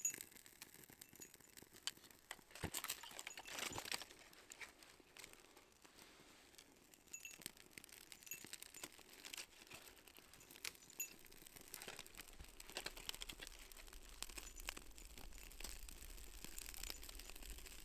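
Faint scraping of a ferro rod struck with a knife over birch bark tinder, with small rustles and crackles as the bark catches and starts to burn. A low rumble comes in about two-thirds of the way through.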